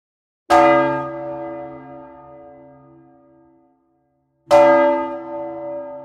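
A church bell struck twice, about four seconds apart. Each stroke rings out with the same pitch and slowly dies away.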